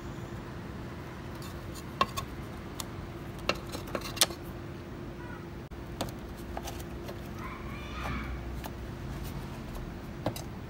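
Scattered sharp metallic clicks and taps of tools and parts being handled while working on an air-conditioner outdoor unit's fan motor, over a steady low hum.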